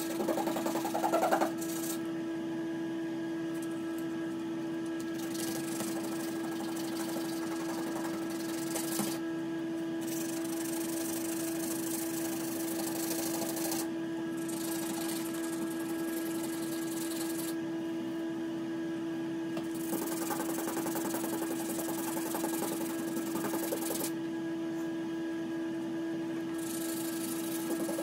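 Sandpaper rubbing over a hardened epoxy patch on a fiberglass tub surround, in stretches of a few seconds with short pauses between, strongest in the first second or so. A steady low hum runs underneath throughout.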